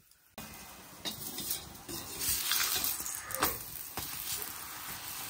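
Ghee sizzling on a finger-millet roti on a hot iron griddle over a wood fire, with a metal ladle scraping and tapping on it as the ghee is spread; it starts suddenly about half a second in.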